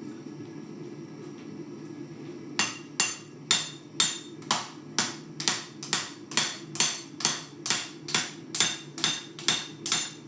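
Hammer blows on red-hot steel on an anvil, forging out a knife blade made from an old farrier's rasp. After a couple of seconds of steady low rumble, the strikes start and keep an even rhythm of about two a second, each with a short metallic ring.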